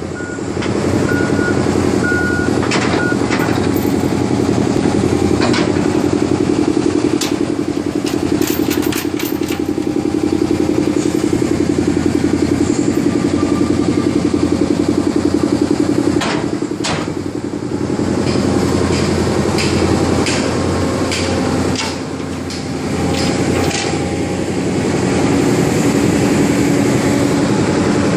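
Caterpillar 320CL excavator's diesel engine running steadily. A travel alarm beeps in short repeated pulses for the first few seconds, sharp knocks come every so often, and the engine sound dips briefly twice in the second half.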